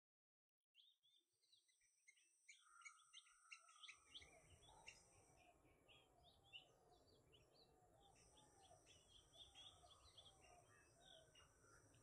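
Faint chorus of birds chirping: many short, high chirps begin about a second in. From about four seconds in, a low rumble and a repeated lower call join them.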